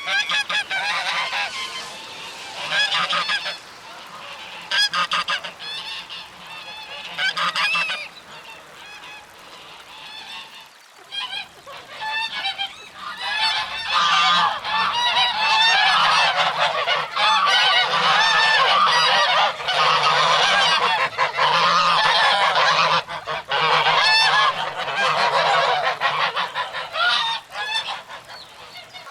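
Geese honking: scattered calls in the first half, then many geese honking over one another in a dense chorus through most of the second half, thinning out near the end.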